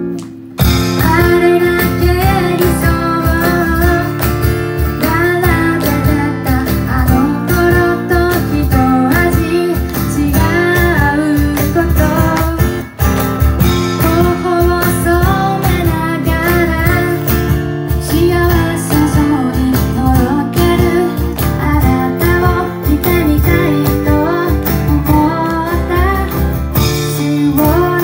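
Live acoustic song: strummed acoustic guitar with a woman singing over it.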